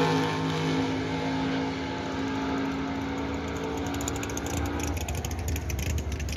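Super Stock drag car's engine at full throttle heading away down the strip. Its steady note fades and is gone about five seconds in, leaving a low rumble and faint clicking.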